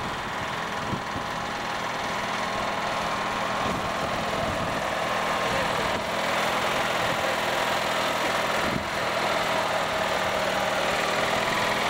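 Small garden tractor engine running steadily as the tractor drives along, getting a little louder toward the end.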